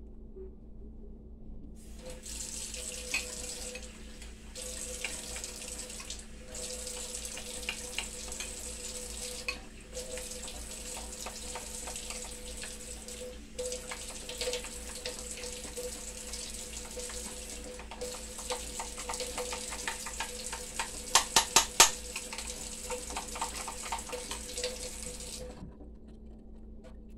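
Kitchen tap running water, breaking off briefly a few times, with scattered light clinks and a quick run of sharp, loud clinks about three-quarters of the way through.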